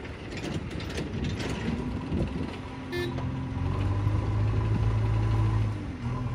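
JCB 3DX backhoe loader's diesel engine running, then revving up and holding steady for about two seconds under hydraulic load as the front loader lifts a full bucket of earth, before dropping back near the end. A brief high beep sounds about three seconds in.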